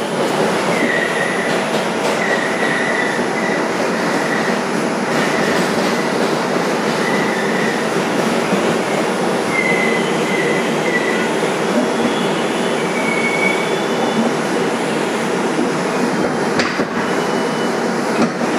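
R142 subway car running, with a steady rumble of wheels on rail. Several short, high wheel squeals come through the first two-thirds, and a few sharp clacks come near the end.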